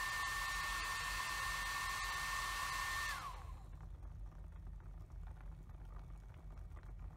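Handheld hair dryer running with a steady airy hiss and a high motor whine, switched off about three seconds in, its whine falling away as the motor spins down. A fainter low hum carries on after it.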